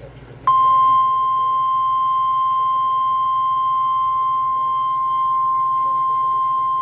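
NOAA Weather Radio 1050 Hz warning alarm tone: a single steady beep that starts abruptly about half a second in and holds unbroken. It is sounding as the weekly test of the weather radio warning alarm system.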